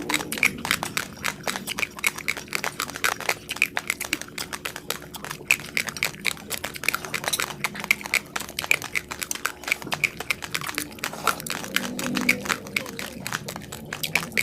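Raw basmati rice being chewed and crunched between the teeth: a dense, rapid run of crisp cracks and clicks.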